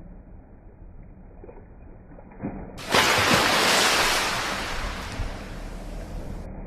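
Rushing water noise that cuts in suddenly about three seconds in and slowly fades, after only a faint low hiss.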